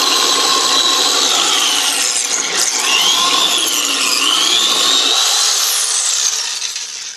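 Corded electric drill running with its chuck end held under water, churning it. The motor whine dips and rises in pitch midway, then the drill slows and stops near the end.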